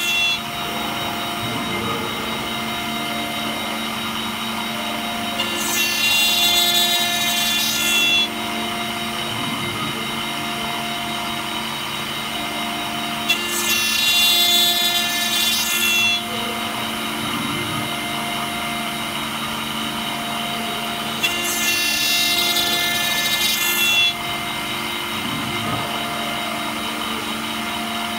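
CNC router spindle running with a steady whine while a small end mill cuts into a brass plate under a coolant spray. About every eight seconds a louder, hissier cutting spell of under three seconds comes as the tool bites into the brass.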